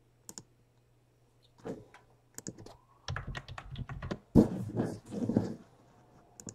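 Typing on a computer keyboard: a few scattered keystrokes, then quicker runs of typing in the second half.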